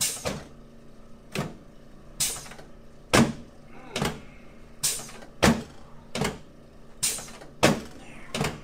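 Hands pushing repeatedly on the back of a patient lying face down on a padded chiropractic table, each push a short, sudden sound, a little over one a second.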